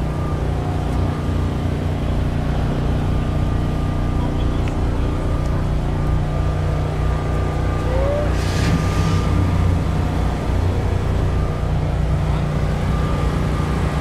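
Engine of a first-generation Pontiac Firebird idling steadily, its exhaust note low and even.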